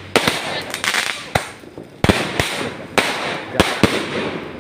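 New Year fireworks going off: an irregular run of sharp bangs with a hissing, crackling haze between them, the loudest about two seconds in.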